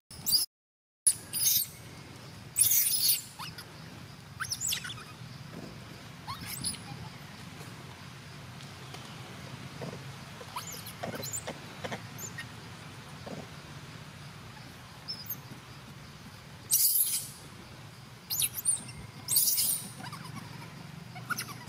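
Baby macaque giving short, high-pitched squeals and squeaks at irregular intervals, about ten in all, the loudest about three seconds in and again close to the end.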